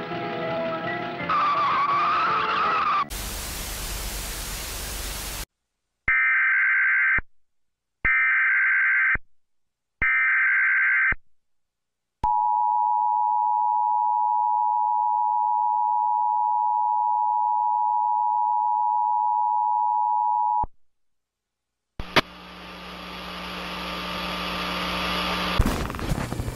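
Cartoon music for the first few seconds, cut off by a burst of loud static. Then an Emergency Alert System tornado warning: three short screeching data bursts (the SAME header) about a second apart, followed by the steady two-tone attention signal for about eight seconds. After a short silence comes a rising hiss of distorted video-tape noise.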